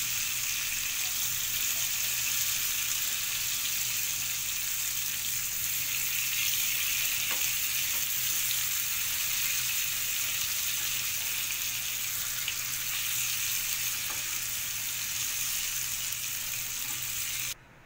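Oil sizzling steadily as pieces of snake gourd shallow-fry in a pan, half-cooking until the skin shrinks, with a steel spoon turning them now and then. The sizzle cuts off abruptly just before the end.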